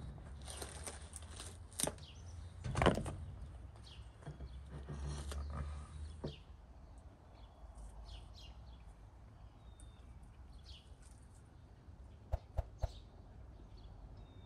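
Rustling, handling and clatter of people eating at a table, with flatbread being torn, busiest in the first half. Birds chirp now and then over it, and there are three sharp clicks near the end.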